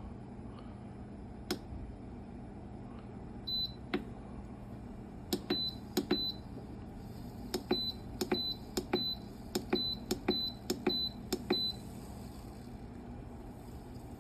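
Buttons being pressed on a BougeRV 12-volt compressor fridge's control panel, each press a small click answered by a short high beep, about a dozen in quick succession while the temperature is being set. A steady low hum runs underneath.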